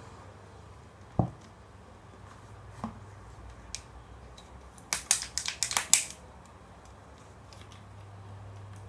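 Plastic bottles handled on a tabletop: a dull thud about a second in as a bottle is set down, a lighter knock, then about a second of sharp crackles and clicks from thin plastic being gripped and a screw cap being twisted.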